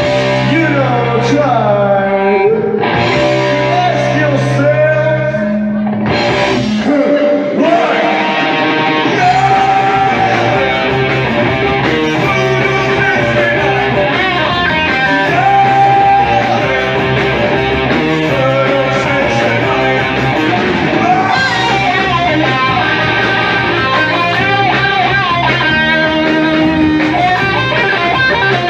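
Rock band playing live, electric guitar to the fore, with singing. The notes slide up and down in the first few seconds, and the deep bass drops out briefly a little after that.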